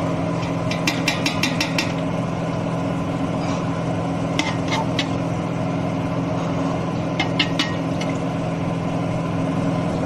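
A steel spoon clinks against a pot of heating cooking oil: a quick run of metallic clicks about a second in, then a few more around the middle and near the end. A steady low hum runs underneath.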